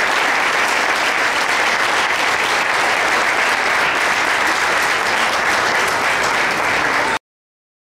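Audience applauding steadily, a dense patter of many hands clapping, which stops abruptly about seven seconds in.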